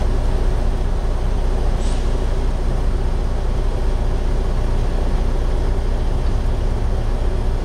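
A semi truck's diesel engine running with a steady low rumble, heard from inside the cab as the truck moves slowly.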